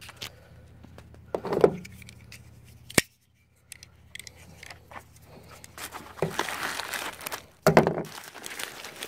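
A padded plastic bubble mailer being handled and cut open with a utility knife: crinkling and rustling, with a sharp click about three seconds in. The rustling grows busier near the end, with one loud crackle.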